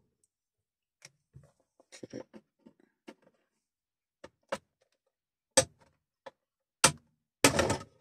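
VW Golf Mk5 plastic steering column trim cover being pried loose with a plastic trim tool: a string of sharp clicks and snaps as its clips let go, the loudest and densest near the end.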